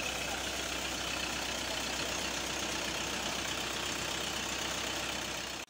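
Tube-well water gushing from a large pipe into a concrete irrigation channel, over the steady hum of a Massey Ferguson tractor engine running the pump through a drive shaft. The mix is steady throughout.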